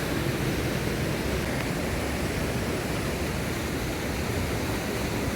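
Steady rush of a waterfall heard up close, water crashing down in a dense, even roar of spray.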